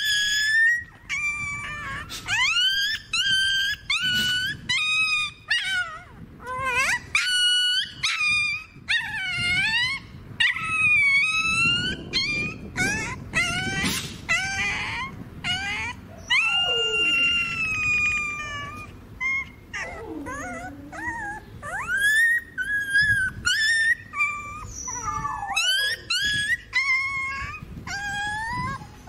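Young puppies crying with high-pitched whines, yelps and squeals one after another, some rising and falling in pitch: cries of pain as mangoworm larvae are squeezed out of their skin.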